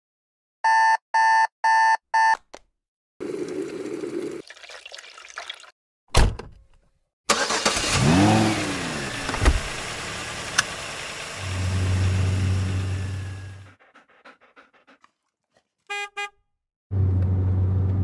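A digital alarm clock beeps four times, followed by a run of edited everyday sounds: a sharp knock about six seconds in, a long rushing noise with falling sweeps, and two steady car horn blasts, the second near the end.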